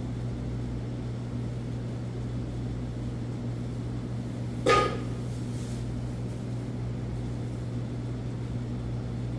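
Steady low hum of kitchen machinery, with a single short ringing clink about five seconds in.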